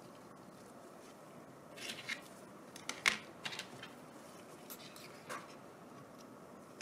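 Faint handling noises: light clicks and rubbing as gloved hands and a small metal tool work a rubber toothed belt onto the compressor's pulleys. There are a few scattered clicks, and the sharpest comes about three seconds in.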